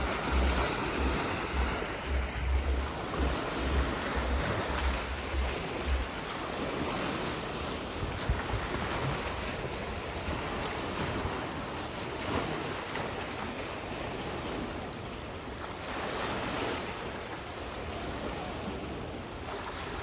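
Small sea waves washing and splashing over shoreline rocks, a steady rushing hiss of surf that swells and eases. For the first six seconds or so, wind buffets the microphone with a choppy low rumble.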